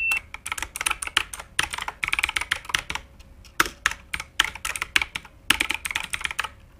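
Quick, irregular clicking like typing on a keyboard, in runs of clicks with short pauses between them.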